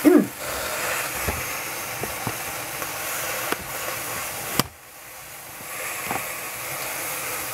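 Steady hiss of a gas stove burner under a pot of chard steaming as it wilts. A short voice sound at the very start; a sharp click about four and a half seconds in, after which the hiss drops and builds back up.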